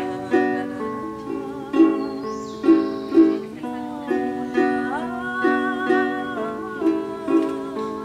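Instrumental folk music: a small guitar-like plucked string instrument strums and picks a repeating pattern at an even pulse. About five seconds in, a higher melody note slides upward and is held for a moment over it.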